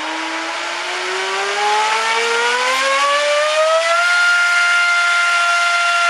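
Turnigy H3126 1300 kV brushless motor spinning an APC 7x8 pylon racer propeller on a 5-cell pack, being throttled up: a loud whine that rises in pitch over about four seconds, then holds steady at full throttle.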